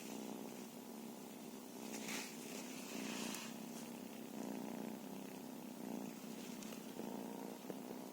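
Cat purring steadily, the purr swelling and easing in time with its breathing about once a second, with a soft rustle about two seconds in.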